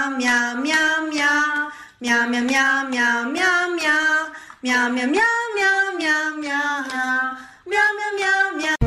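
A solo high voice, a woman's or child's, singing a slow tune in four phrases with short pauses between them.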